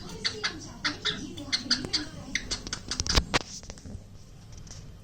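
Cockatiel making kissing sounds: a quick run of short smacking clicks, several a second, loudest in a cluster about three seconds in, then thinning out.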